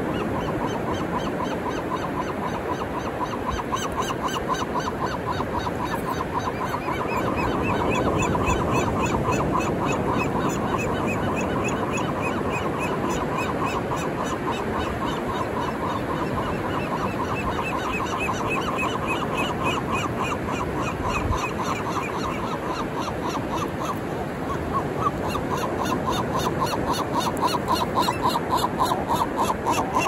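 Seagulls squawking in long runs of rapid, repeated calls over the steady wash of ocean surf. The calls grow louder in the last few seconds.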